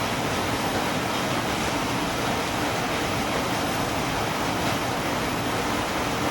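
Steady rain, a constant even hiss with no separate drops or other events standing out.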